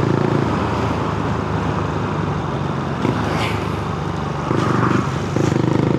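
Honda Grom's single-cylinder engine running steadily under way, with wind and road noise; the engine note dips briefly and steps back up about five seconds in, like a gear change.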